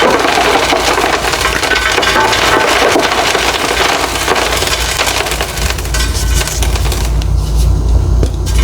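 Reformed gym chalk being crushed and crumbled by hand: dense, crisp crunching and crackling that eases for a moment about seven seconds in.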